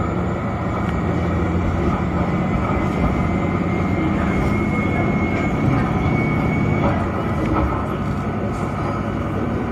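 Diesel railcar engine running, a steady low drone with a faint high whine over it.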